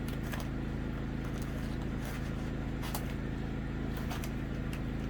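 A steady low machine hum with a few faint clicks and ticks over it.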